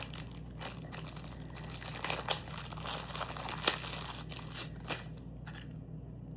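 Packaging crinkling and rustling as a pager is unwrapped by hand, with a few sharper crackles. It stops about five seconds in.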